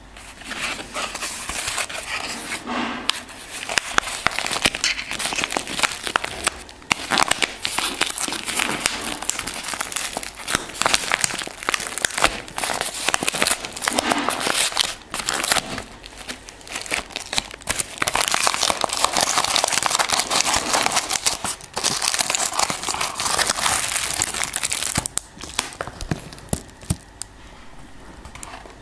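Yellow padded mailer envelope being torn open and crumpled by hand: dense crinkling and tearing of paper, in several long bouts with short breaks, dying down over the last few seconds.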